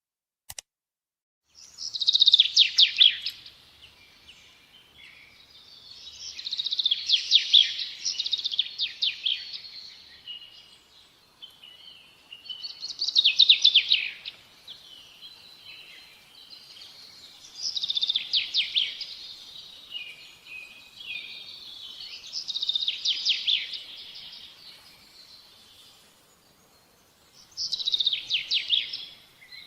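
A short click, then a songbird singing: loud high trilled phrases a second or two long, repeating about every five seconds, with softer chirps in between.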